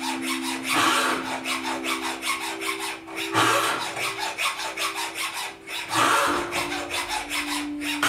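Flat hand file rasping against a 14k gold ring braced on a wooden bench pin, in quick repeated strokes.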